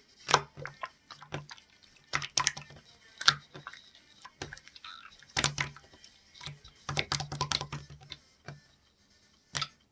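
Typing on a keyboard: irregular bursts of quick clicks with short pauses between them, thinning out near the end.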